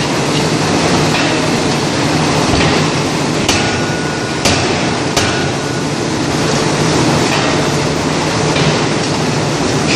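Hydraulic open-die forging hammer at work against a loud, steady machinery noise, with three sharp metallic strikes about a second apart in the middle, the last two ringing briefly.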